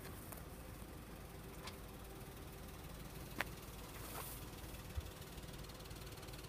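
Faint steady rumble of cars idling while waiting at a closed level crossing, with a few sharp clicks.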